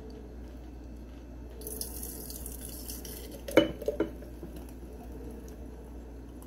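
Thick blended smoothie pouring from a blender jar into a glass mason jar, with two sharp clinks of glass on glass about three and a half seconds in.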